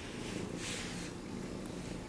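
Gray tabby domestic shorthair kitten purring steadily while being petted, a low continuous rumble, with a brief rustle about half a second in.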